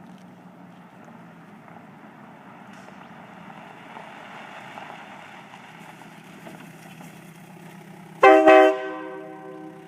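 Nathan K3LA three-chime train air horn, run on about 100 psi of air, gives one short blast about eight seconds in. It is a loud chord that holds for about half a second and then fades out over the next second. Before it there is only a steady low background hum.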